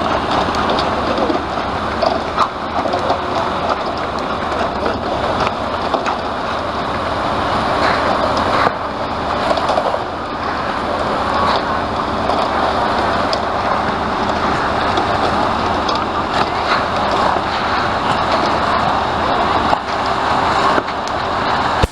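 Concrete truck's diesel engine running steadily during a slab pour, a constant loud rush with scattered small clicks and knocks.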